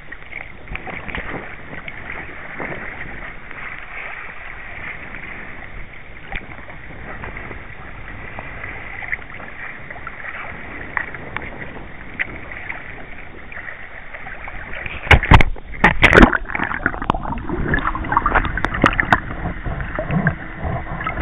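Water lapping and sloshing against a sea kayak's hull, an even wash of noise. About three-quarters of the way through come loud, sudden splashes and knocks as the camera is plunged underwater, with gurgling water after.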